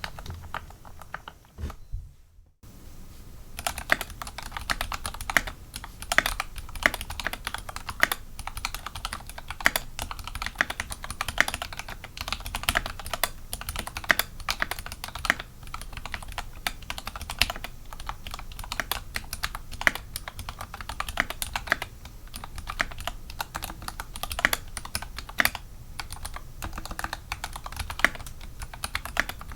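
Fast continuous typing on an Input Club Kira aluminium-frame mechanical keyboard with Krytox 205g0-lubed Tealios linear switches, GMK Bento keycaps and a sorbothane-lined case: a dense, irregular stream of keystroke clacks. It starts after a brief break about two seconds in.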